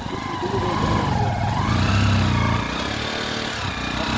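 Bajaj Platina 125 motorcycle's single-cylinder engine running hard and revving up and down while it strains to pull a tractor on a tow rope.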